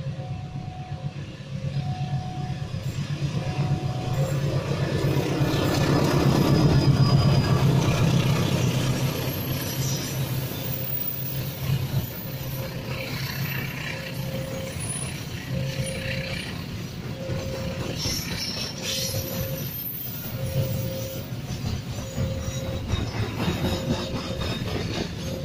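Train passing with a steady low rumble that builds to its loudest about seven seconds in, then eases. Over it, repeated electronic warning beeps: two alternating pitches at first, then a single slower beep.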